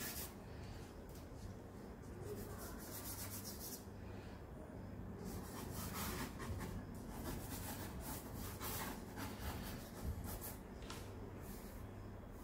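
Charcoal being rubbed and stroked across drawing paper: a soft, scratchy rubbing in irregular strokes with short pauses.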